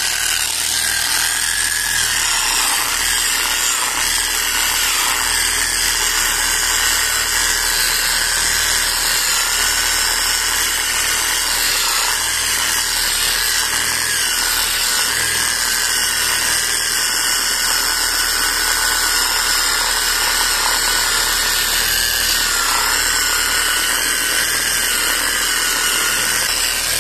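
Electric rotary polisher, a grinder-style tool with a wool pad, running with a steady high whine whose pitch dips slightly now and then. It is buffing polishing compound over automotive clear coat to bring up the shine.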